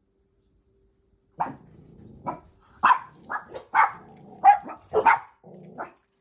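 A dog barking: after about a second and a half of silence, a quick, irregular run of short, sharp barks.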